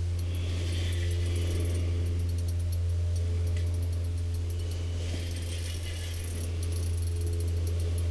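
Spinning reel being cranked against a large walleye, with its drag and gears ticking in quick irregular clicks. A steady low hum runs under it.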